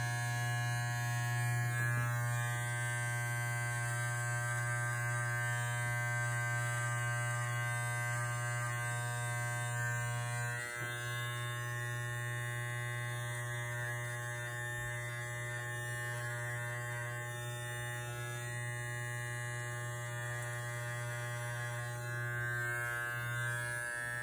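Andis electric hair trimmer with a T-blade running with a steady buzz as it is drawn along the beard line on the cheek and jaw. The buzz dips for a moment about ten seconds in and again near the end.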